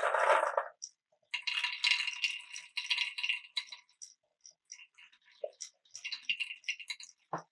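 Marbles rolling and clattering through a marble run: bursts of dense rattling in the first second and again for about two seconds, then scattered clicks as they drop and knock against track pieces, with a sharp knock near the end.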